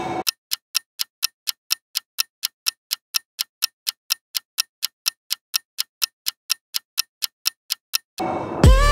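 Steady, even ticking, about four identical ticks a second, with silence between them. Background music cuts back in near the end.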